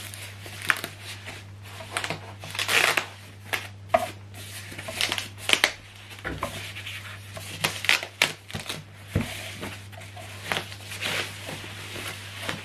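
White protective wrapping being pulled off a portable Bluetooth speaker: irregular rustling and crinkling with sharp handling clicks, over a steady low hum.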